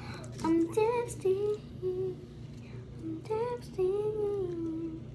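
A young girl singing quietly to herself, a tune of several held notes that bend gently in pitch.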